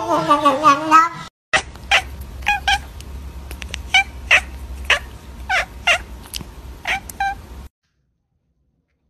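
A cat's long, wavering cry that cuts off about a second in, then a tabby cat making a string of about a dozen short, clipped calls, roughly two a second, that stop sharply near the end.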